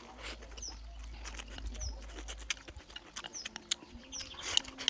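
Close-up eating sounds: chewing rice and tofu with wet mouth clicks and lip smacks, irregular and continuous.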